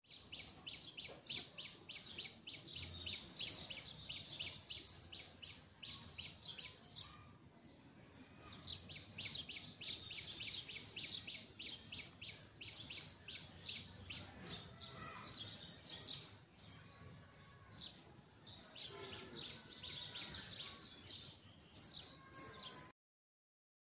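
Many small birds chirping in a dense, continuous chorus of quick high chirps, with a short lull about eight seconds in. The sound cuts off suddenly near the end.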